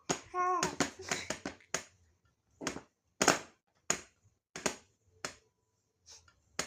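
A baby's short voiced sound, then a run of short breathy puffs, about one every half second or so.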